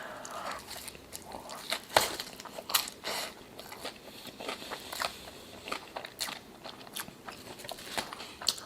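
Close-up eating sounds: crunchy food being bitten and chewed, with irregular crisp crunches and mouth clicks, the sharpest about two seconds in.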